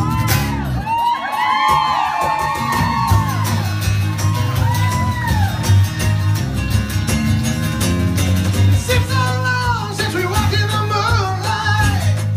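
Live band of acoustic guitars and bass playing. The bass drops out about a second in while the audience whoops and yells, and the band comes back in about three seconds in.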